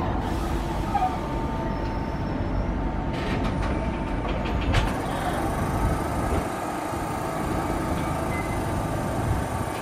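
Toden Arakawa Line tram no. 7708 rolling slowly into a platform stop: a low running rumble with a faint steady whine and a few clicks from wheels and brakes. The rumble eases off about six and a half seconds in as the tram comes to a halt.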